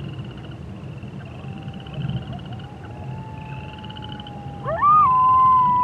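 Frogs and toads trilling in a chorus at night, with a coyote's faint, drawn-out howls. About four and a half seconds in, a loud coyote howl rises sharply in pitch and then holds steady on one note.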